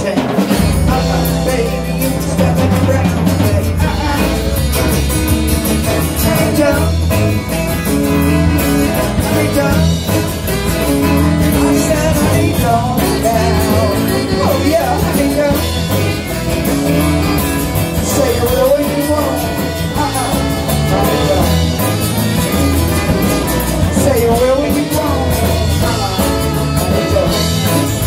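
Live rock band playing: electric and acoustic guitars with bass, a woman singing into a microphone, and a saxophone.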